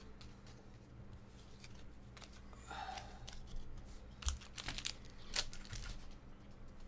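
Faint handling noise of trading cards and foil card-pack wrappers: rustling and crinkling with a scatter of small sharp clicks and taps, the sharpest in the second half.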